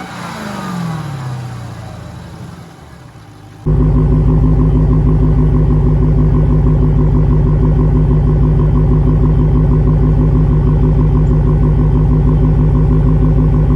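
Supercharged V8 of a Dodge Challenger Hellcat. At first the revs fall back after a throttle blip, with the pitch dropping. About four seconds in, a loud, steady, deep engine note begins abruptly and holds.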